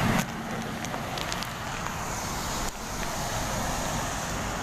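Steady rumble of road traffic passing on a nearby road, with a few faint clicks about a second in.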